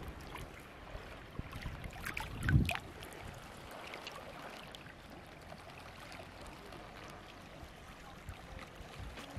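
Shallow lake water lapping and trickling over a pebble shore, with a brief low thump about two and a half seconds in.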